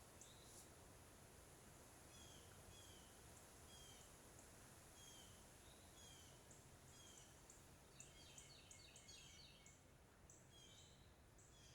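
Faint wild birds calling over a steady low hiss: a short falling chirp repeats about once a second, and another bird gives a burst of quick high notes about eight seconds in.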